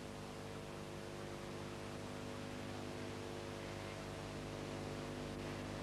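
Steady electrical hum, a stack of unchanging low tones, under an even hiss.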